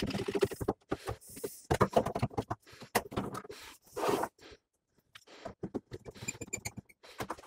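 One-handed trigger bar clamps being fitted onto a pine panel and squeezed tight: irregular clicks, rattles and knocks of plastic clamp parts against wood, with a quick run of ratchet clicks about six seconds in.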